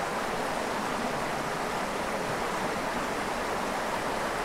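Small mountain creek running over a rocky riffle: a steady, even rush of flowing water.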